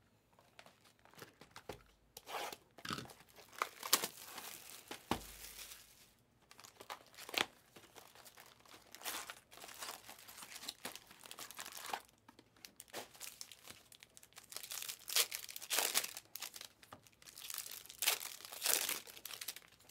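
Foil trading-card pack wrappers crinkling and tearing as packs are ripped open one after another, in irregular bursts of rustling and ripping.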